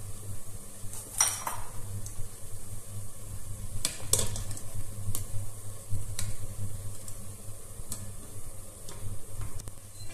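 Metal ladle clinking and scraping against a stainless steel pot while dough buns are bathed in simmering baking-soda water, the lye-bath step for pretzel buns: a dozen or so scattered light clinks over a steady low hum.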